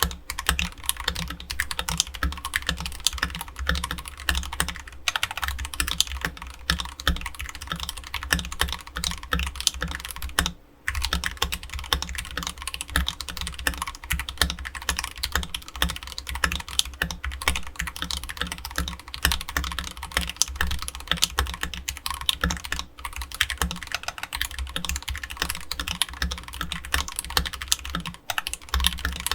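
Continuous fast typing on an AKKO 3068B Plus mechanical keyboard with AKKO Jelly Purple tactile switches and ASA-profile keycaps, resting on a desk mat. There is a brief pause in the key clicks about eleven seconds in.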